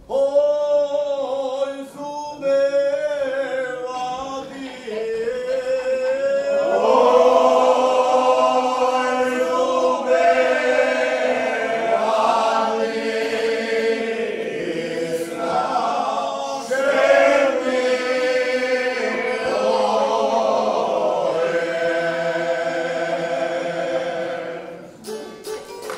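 Mixed group of men and women singing a traditional Serbian village folk song in long, drawn-out held notes. The singing grows fuller about seven seconds in and fades away near the end.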